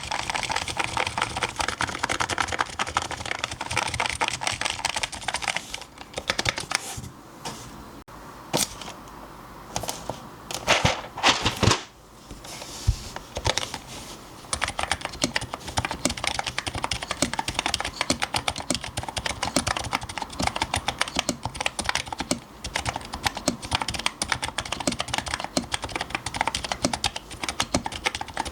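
Fast, continuous typing on a custom electro-capacitive keyboard with Topre-style switches on an aluminium top-mount plate. The typing thins out and goes quieter for several seconds in the middle, with a few louder clacks, then picks up again into a steady run of keystrokes.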